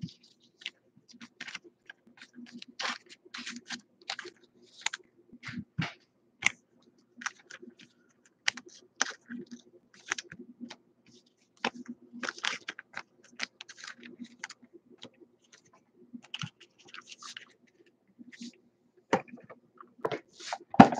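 Trading cards being handled and flipped through by hand: irregular light clicks and taps of card stock, with a faint steady hum underneath.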